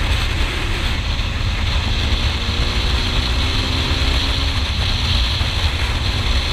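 Wind rushing over the microphone of a camera riding on a moving KTM Duke 390, over the bike's single-cylinder engine running steadily. A faint engine note sinks slightly partway through.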